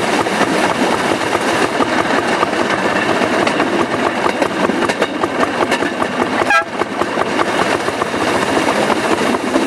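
Rail section car (speeder) running along narrow-gauge track: a steady, loud engine-and-wheel clatter with fine rattling over the rails. A brief high toot sounds about six and a half seconds in.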